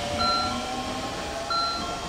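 Electronic two-note descending chime (ding-dong) at a railway station, sounding twice about 1.3 s apart, over the low background noise of a train standing at the platform.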